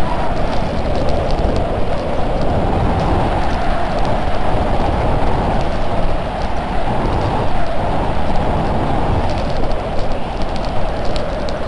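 Bobsleigh's runners speeding down an ice track: a loud, steady rushing rumble with scattered rattling ticks.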